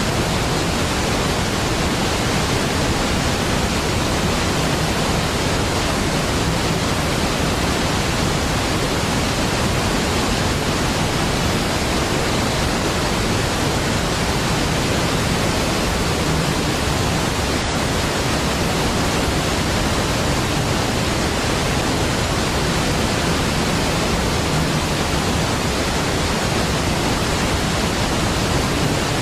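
Large waterfall: a steady, deep rush of falling water that stays even throughout, with no change in level or pitch.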